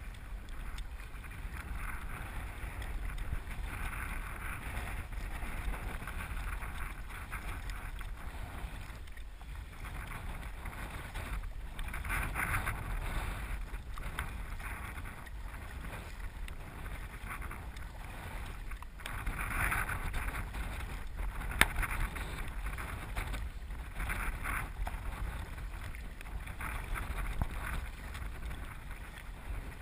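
Double-bladed kayak paddles dipping and pulling through the water in repeated swishing strokes, over a steady rumble of wind on the microphone. A single sharp click comes about two-thirds of the way through.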